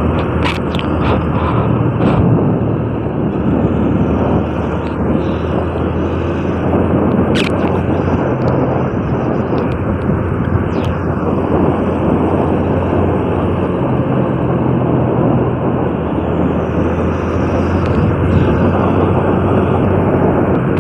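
Honda Revo 110 motorcycle's single-cylinder engine running steadily while riding, under a dense rush of wind on the chest-strapped phone's microphone.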